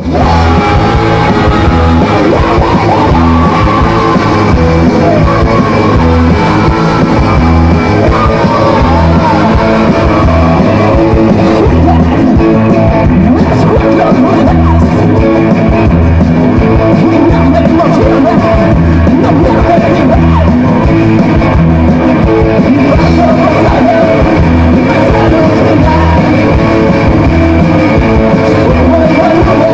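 Live garage-punk rock band playing loud over a PA: electric guitars, drum kit and a singer, with a steady driving beat.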